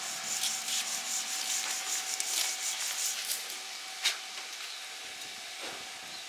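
Stick (arc) welding in progress: the arc crackles and fizzes with a dense scratchy hiss for about three and a half seconds, then thins out. A single sharp snap comes about four seconds in, followed by a quieter hiss.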